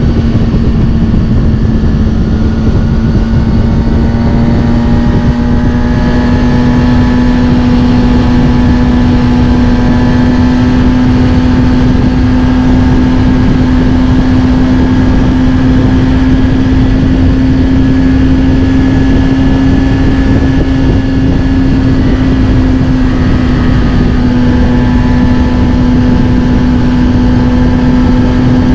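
Kawasaki Ninja ZX-6R inline-four running through a Scorpion titanium exhaust, cruising at a near-constant engine speed. The pitch rises slightly a few seconds in and then holds steady. A steady rush of wind noise runs underneath.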